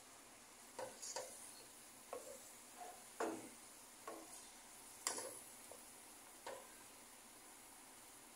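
Wooden spatula stirring ground pork and onions in a nonstick frying pan: about ten short, irregular scrapes and knocks against the pan, over a faint sizzle.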